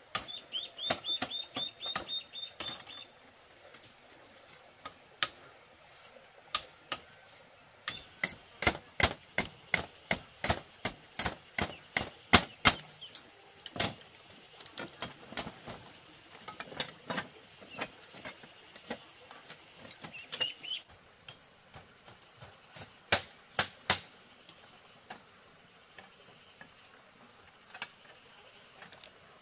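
Bamboo being worked by hand: a series of sharp wooden taps and knocks, coming fastest at about three or four a second in the middle, with a short run of high rapid chirps in the first few seconds.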